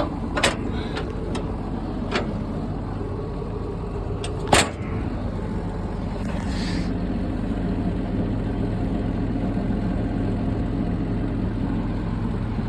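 John Deere 7720 tractor's diesel engine running with a steady low hum. A few sharp clicks cut across it: one about half a second in, another about two seconds in, and the loudest about four and a half seconds in.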